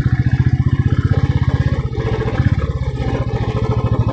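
Motorcycle engine labouring up a steep, rough climb, its firing beat loud and even. About two seconds in, the beat briefly falters and changes, then picks up again.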